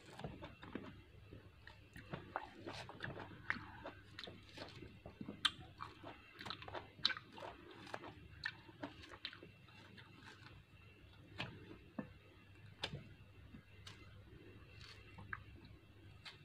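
An orange being peeled by hand close to the microphone: irregular small crackles and snaps of the rind tearing, coming thick and fast at first and sparser later, mixed with wet chewing sounds.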